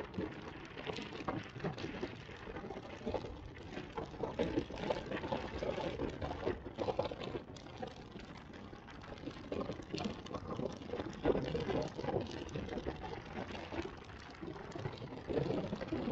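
Moving car's road and wind noise picked up by a camera outside the side window: an irregular rushing and buffeting, with tyres hissing on the wet road.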